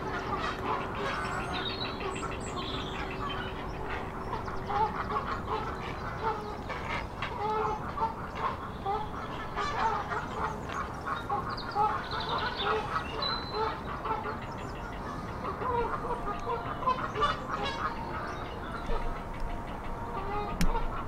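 Many waterfowl calling at once: a busy chorus of short, overlapping calls throughout, with a steady low hum under it that stops about six seconds in.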